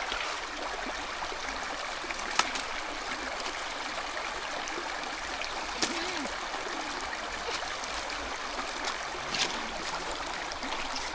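Shallow river flowing over rocks: a steady rushing of water, with a few brief clicks on top.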